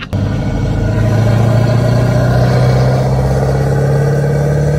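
Lifted Ford Super Duty pickup's engine pulling as the truck drives along, its note rising slowly and steadily.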